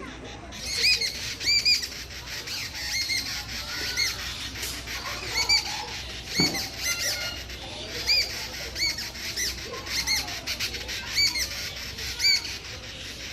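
Babblers calling: short, arched, harsh notes repeated every second or so, sometimes in quick pairs.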